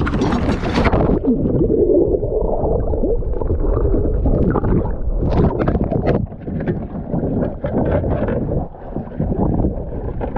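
Wind buffeting the microphone: a steady low rumble with scattered crackles and pops.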